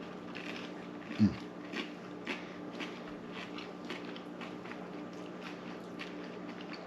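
Close-up chewing of crispy fried food, with many small irregular crunching clicks. There is one louder low thump about a second in.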